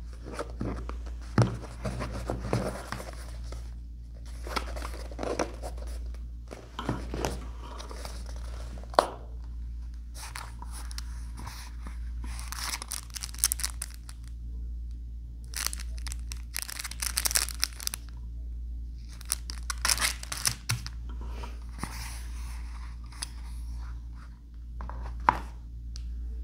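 Unboxing handling noise: leatherette sunglasses cases opened and handled, and a cleaning cloth's plastic sleeve crinkled, in rustling bursts with a few sharp clicks, over a steady low hum.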